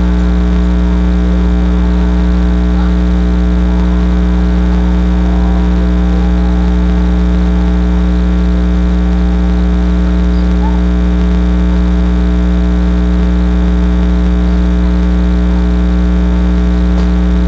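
Loud, steady electrical hum, a low buzz with a stack of even tones that never changes.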